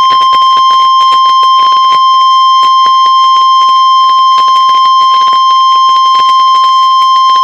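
NOAA Weather Radio warning alarm tone: a single loud, steady, high-pitched tone held without a break, with faint crackling static through it. It is the attention signal that comes before a National Weather Service warning, here a flash flood warning.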